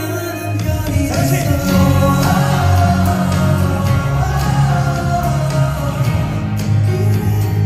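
Male K-pop vocal group singing a ballad live into microphones over its musical accompaniment.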